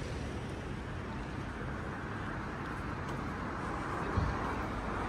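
Night street ambience of passing road traffic: an even rush of car noise, with a brief low thump about four seconds in.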